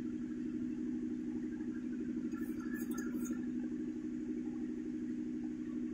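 Three-phase induction motor of a reverse osmosis plant's pump running with a steady hum, with a few faint high ticks about halfway through.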